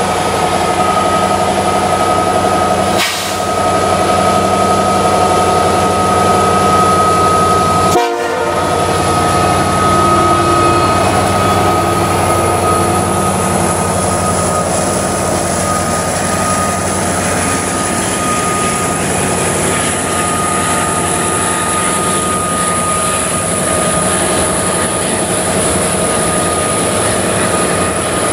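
A CN SD70M-2 diesel locomotive sounds its Nathan K5LLA five-chime air horn as it approaches and passes, with short breaks about three and eight seconds in. Under the horn, a double-stack intermodal train's container well cars roll past.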